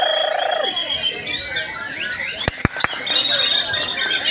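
White-rumped shamas (murai batu) singing over one another in a dense chorus of rapid whistles, chirps and trills, with a few sharp clicks a little past halfway.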